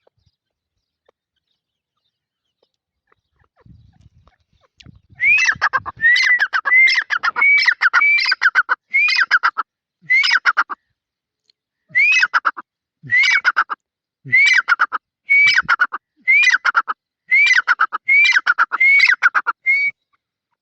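Francolin (teetar) calling: a loud, fast series of harsh notes, each falling in pitch, about one and a half a second, starting about five seconds in, with a short break near the middle.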